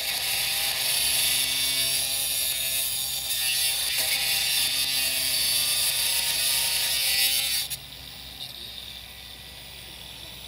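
Makita angle grinder's cut-off wheel cutting into a soft cast metal meat grinder body, a steady high-pitched grinding whine, the cut cooled with a trickle of water. After about eight seconds the cutting stops abruptly and the sound falls to a much lower level.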